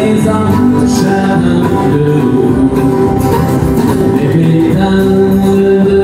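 Live country song: two acoustic guitars strummed together with a man singing into a microphone.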